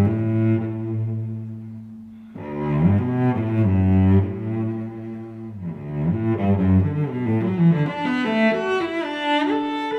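Instrumental background music: held low notes and a slow melody, with a brief break about two seconds in.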